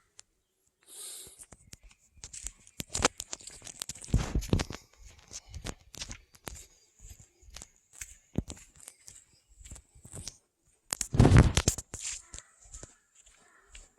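Footsteps crunching on a gravel forest road, short irregular scrapes, with two louder rustling bursts about four and eleven seconds in.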